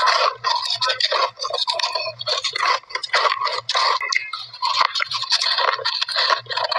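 Shaved ice being bitten and chewed in big mouthfuls, heard up close: a rapid run of crisp crunches, several a second.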